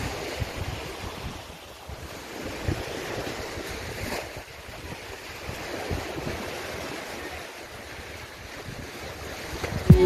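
Small ocean waves washing up onto a sandy, rocky beach, swelling and easing, with gusts of wind rumbling on the microphone.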